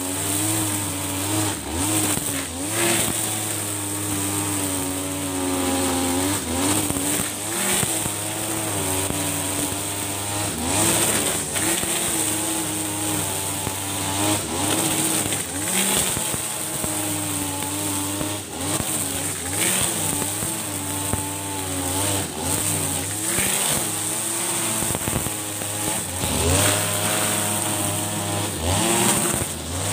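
Husqvarna 542RBS backpack brush cutter's 42cc two-stroke engine running at high speed while its 2.4 mm nylon trimmer line cuts thick, tall grass. The engine pitch sags and recovers again and again as the line loads up in the grass, with brief swishes as it tears through.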